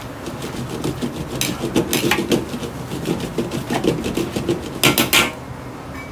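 Metal ladle scraping and clattering against a large 50 cm wok as a stir-fry of greens and pork is stirred and tossed over high heat, in a quick irregular run of strokes with the loudest clatter about five seconds in.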